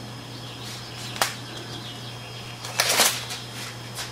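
Handling noise: a single sharp click about a second in and a short rustling clatter near the three-second mark, over a steady low hum.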